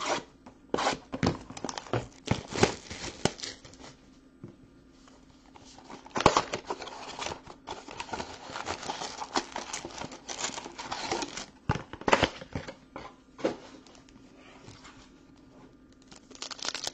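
Foil-wrapped trading-card packs crinkling and tearing as a cardboard hobby box is opened and its packs are handled. The crackling is irregular and comes thickest in a stretch a few seconds long in the middle.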